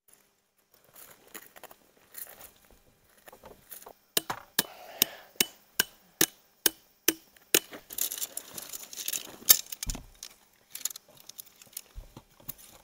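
A metal tent stake being hammered into gravel: a run of sharp, evenly spaced strikes, about two or three a second, starting about four seconds in and stopping about halfway through the last third, with rustling of the tent fabric and tarp around them.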